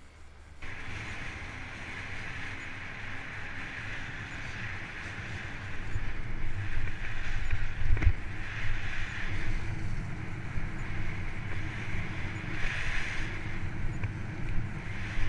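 Wind buffeting the microphone and the rumble of a Salsa Mukluk 2 fat bike's tyres rolling fast over grass, starting abruptly within the first second and growing louder about six seconds in. A single sharp knock comes about eight seconds in.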